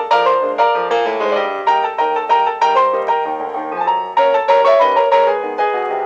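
Solo piano accompaniment for a silent film, playing a quick run of notes, several a second, without a break.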